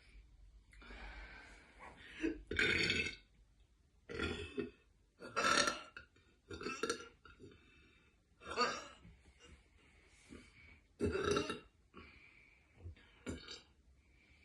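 A woman burping deliberately: a run of about six loud burps, each about half a second long, with a smaller one near the end.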